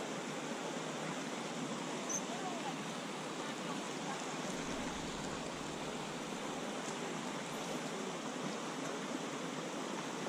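Creek water running steadily over rocks in a shallow riffle, a continuous even rushing hiss.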